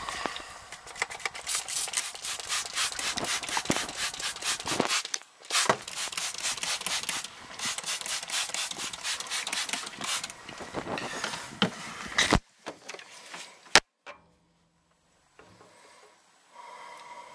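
Fast, repeated scratchy rubbing strokes, several a second, in two long runs with a short break between them, followed by a single sharp click.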